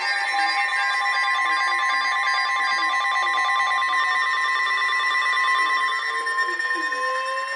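Emergency alert tones from a weather-radio broadcast: several steady electronic tones sound together, the strongest near 1 kHz, and from about halfway a further tone glides slowly upward.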